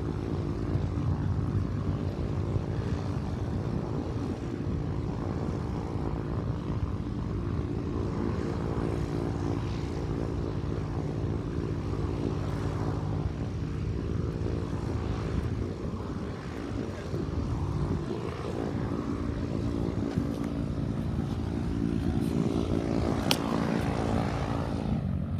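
Small single-engine propeller plane's piston engine running at a steady pitch as it taxis. A single sharp click near the end.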